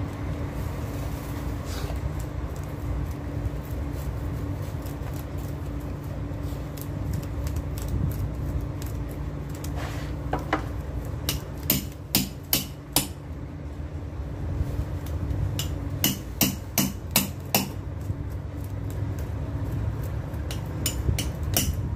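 Knife chopping through a large tuna on a wooden board: runs of sharp knocks, five or six in quick succession, from about ten seconds in. A steady low hum sits under it.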